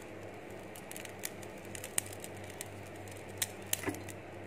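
Hand-operated idiyappam press being worked to squeeze wheat dough into strings, giving scattered sharp clicks and creaks over a steady low hum.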